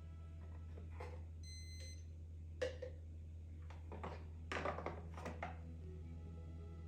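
Automatic baby formula dispenser giving a short electronic beep about a second and a half in, with scattered plastic clicks and taps over a low steady hum.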